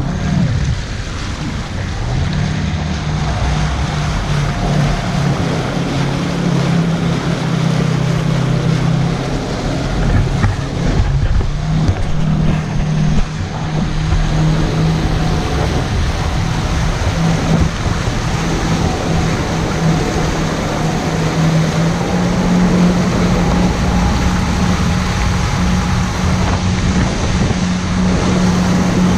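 Yamaha personal watercraft engine running under way at steady speed, over the rush of water and wind. The engine picks up a couple of seconds in, then holds a steady hum with small changes in pitch.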